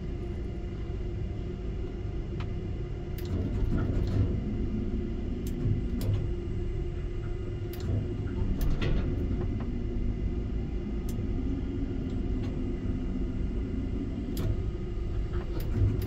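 Tower crane hoist running steadily while cabling up a load of about 20,000 pounds, a low rumble and hum, with scattered faint clicks.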